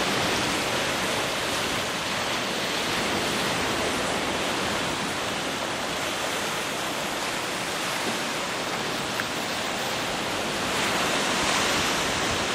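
Steady rushing noise of strong wind and breaking sea surf, swelling a little near the end.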